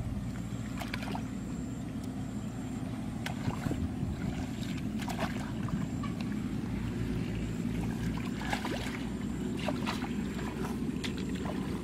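Shallow muddy paddy water sloshing and splashing in many short, irregular strokes as people wade and grope through it by hand, over a steady low rumble.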